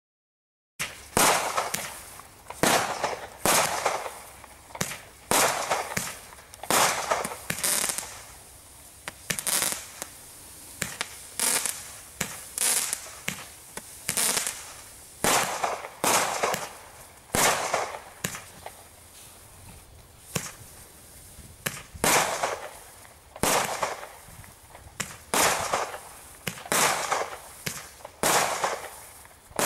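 Brightstar Bombay Nights 21-shot firework barrage cake firing. About a second in it starts a string of sharp shots and aerial bursts, roughly one a second.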